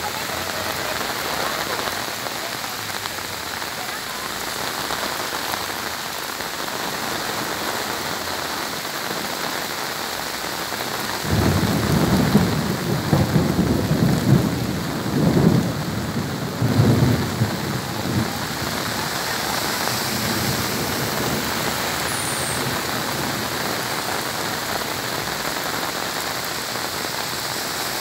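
Heavy rain pouring steadily onto a flooded street and pavement. Near the middle, a loud low rumble comes in for about seven seconds and then dies away.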